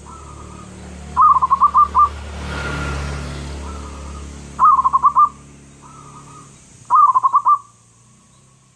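Zebra dove (perkutut) singing: three phrases of quick rolling coos, with softer notes between them.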